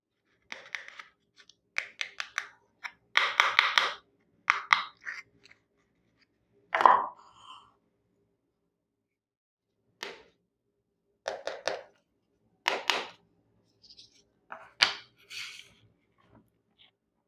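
Unboxing of a miniature plastic toy kitchen set: packaging and small plastic pieces handled in a string of short crackly, crinkling bursts with quiet gaps between them.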